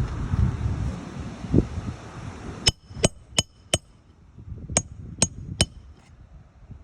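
Hammer blows on something that rings, seven sharp strikes: four in quick succession, then three more after a short pause. A low rumble dies away before the blows start.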